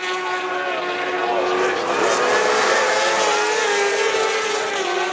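Racing superbike engines running at high revs, a steady multi-pitched whine with some pitches sagging slowly as the bikes go through the corner.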